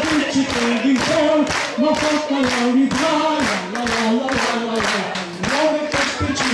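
An elderly man singing a wordless melody into a microphone while the crowd claps along in a steady beat.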